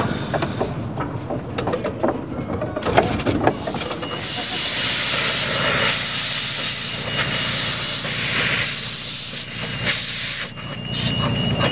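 Miniature steam locomotive hissing steadily as it vents steam low down from its cylinder drain cocks, starting about four seconds in and easing near the end. Before it come clicks and knocks of the carriages running over the track.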